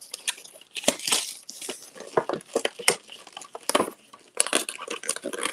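Irregular crackling and clicking of an action figure's cardboard window box, with its plastic window, being handled and pulled open by hand.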